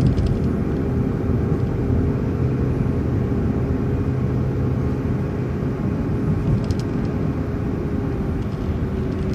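City transit bus in motion, heard from inside: a steady low engine and road rumble with a faint steady whine above it.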